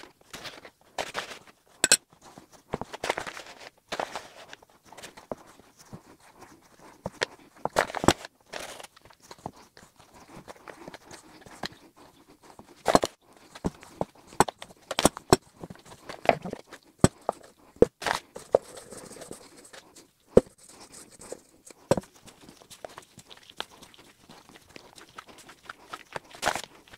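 Hands kneading sticky shortcrust dough in a stainless steel bowl: irregular soft rustling and squishing, with scattered sharp knocks as the bowl is bumped now and then. Near the end the dough is pressed and worked on a floured table.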